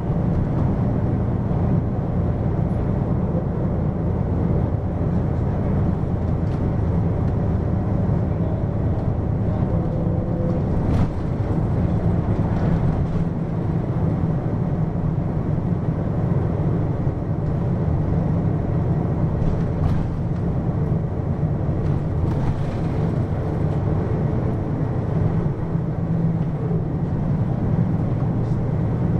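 Hino QKG-LV234N3 city bus running, heard inside the cabin: a steady diesel engine drone with road noise, and a single knock about eleven seconds in.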